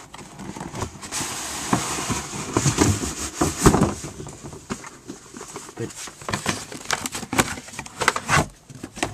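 Handling noise: crinkling with a run of irregular clicks and knocks, the loudest about three and a half seconds in.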